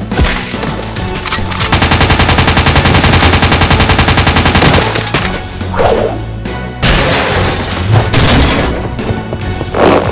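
Submachine-gun sound effect firing a long burst of rapid automatic fire for about three seconds, over background music; a few separate hits follow.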